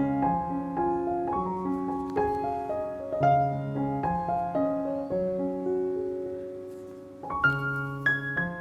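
Background piano music: a gentle melody with held chords, one phrase fading out and a new one beginning near the end.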